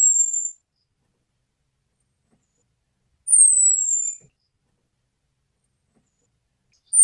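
Orange-headed thrush calling: a thin, high whistle about a second long that falls in pitch, repeated about every three and a half seconds, with one call ending just after the start, a full call about three seconds in, and the next starting at the very end. This is the call used to lure in male orange-headed thrushes.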